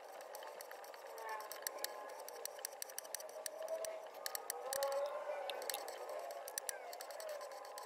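Hand tap turned in a T-handle tap wrench, cutting threads into a metal tie rod: a string of irregular sharp clicks and ticks as the tap works.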